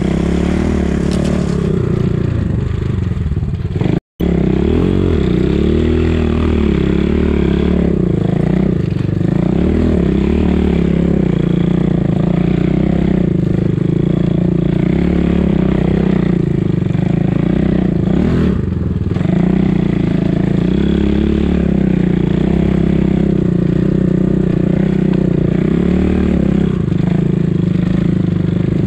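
Enduro motorcycle engine running under way as the bike rides, its pitch rising and falling with the throttle. The sound cuts out for a split second about four seconds in.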